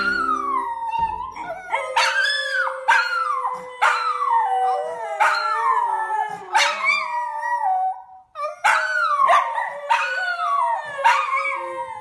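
A border collie and a small shaggy dog howling together: one voice holds a long steady note while the other howls in short rising-and-falling calls about once a second, breaking off briefly about eight seconds in.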